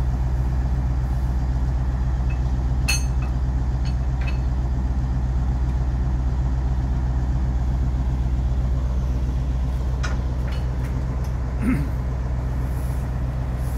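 Wirtgen W1900 cold milling machine's diesel engine idling steadily with a deep, even hum. A few brief clicks and knocks come over it, about three seconds in and again near the end.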